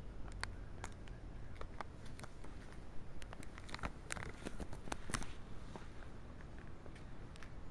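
Handling noise from a handheld camera being carried and panned: irregular light clicks and taps over a low steady rumble.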